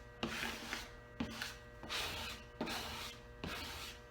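Squeegee strokes scraping across wet paper transfer tape over a vinyl decal, pushing the soapy water out from behind it: about five strokes in a row, each starting with a sharp click.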